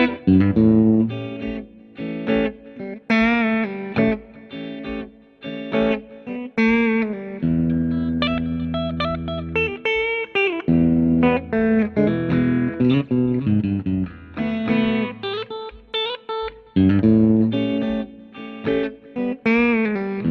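Electric guitar played through a Positive Grid Spark amp driving Mesa and Fender speaker cabinets: single-note lines, some with vibrato, and long held chords.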